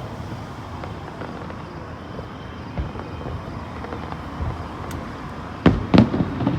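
Steady outdoor background noise, then near the end fireworks start going off: two loud bangs a fraction of a second apart, followed by a few smaller pops.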